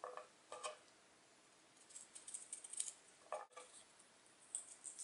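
A few faint, separate clicks and light crisp ticks of a small kitchen knife slicing fresh green beans lengthwise down the centre.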